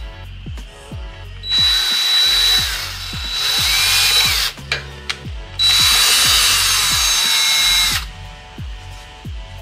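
Cordless drill boring a hole through a car's plastic fender liner for a mudflap clip, in two runs of about three and two and a half seconds with a short pause between. The motor whines steadily under load while it runs.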